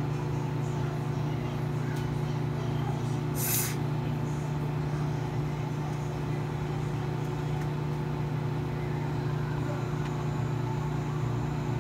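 Microwave oven running on a short heating cycle: a steady, even hum with a brief hiss about three and a half seconds in.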